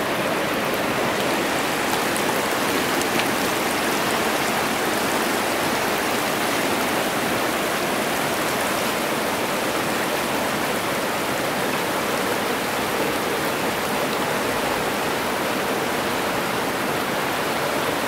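Shallow mountain river rushing over rocks and riffles: a steady rush of running water.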